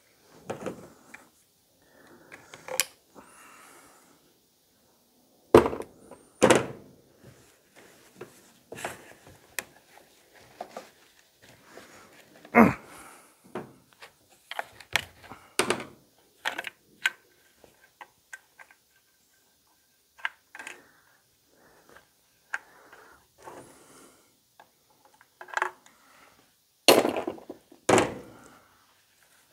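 Irregular knocks, clicks and thunks of hand tools and a chainsaw being handled and set down on a desk as the saw is taken apart, with louder knocks about six seconds in, near the middle and near the end.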